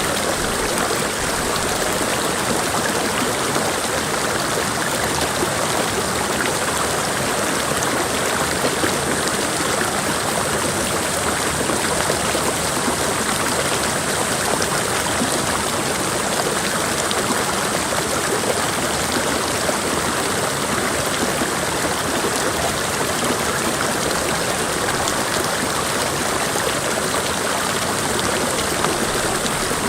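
Mountain creek flowing over rocks: a steady, dense rush of running water.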